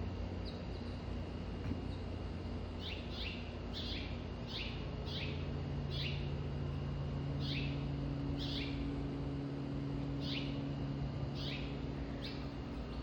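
A bird calling with short, falling chirps, repeated irregularly about once a second, sometimes in quick pairs, starting about three seconds in, over a steady low hum.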